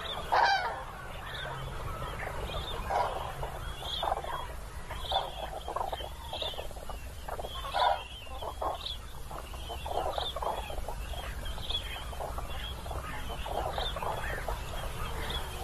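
A flock of common cranes calling, many trumpeting calls overlapping, with louder calls about half a second in and near eight seconds.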